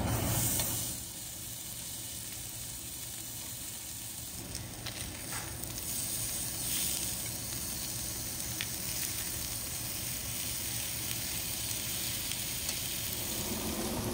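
Thick slabs of pork belly sizzling on a hot round tabletop grill, a steady hiss of fat frying, with a few light clicks of metal tongs against the meat and grill.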